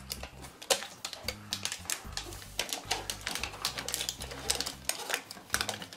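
Metal foil tape crinkling and crackling as it is wrapped and pressed around a plastic duct reducer on a sheet-metal exhaust fan housing, with hands knocking the housing: a quick, irregular run of clicks and crackles.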